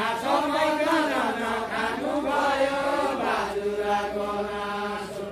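Men's voices singing a deuda folk song together, a slow chanted melody with no instruments. The phrase settles into one long held note for the last couple of seconds.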